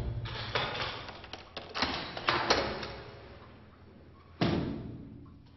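Heavy isolation-cell door being fastened after it slams: a series of echoing knocks and thuds in the first three seconds, and one more loud knock about four and a half seconds in, each ringing out in the bare cell.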